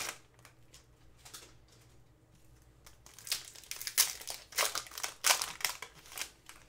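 Foil hockey-card pack wrapper crinkling as hands tear it open. There is a brief crackle at the start, then a quieter stretch, then a run of short sharp crackles from about three seconds in.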